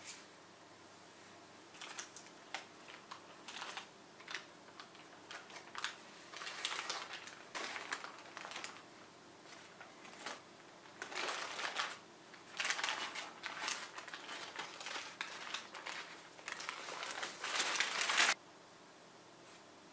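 Paper wrapping crinkling and rustling as it is peeled off a slab of butter, in a string of short uneven bursts that stops abruptly near the end.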